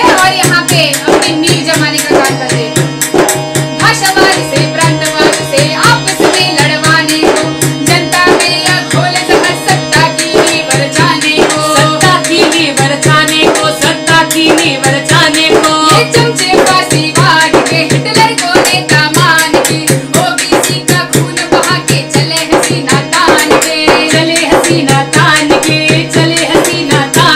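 Harmonium chords with a large stick-beaten drum keeping a fast, even rhythm, and women's voices singing a protest song in Hindi at times.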